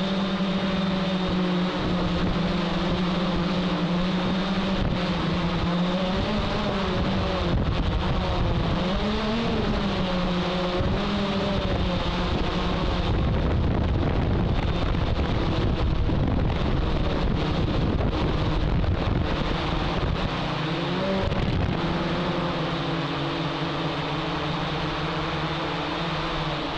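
Hexacopter's electric motors and propellers humming, heard from on board, the pitch wavering and gliding up and down as the craft flies, over a steady rush of wind on the microphone.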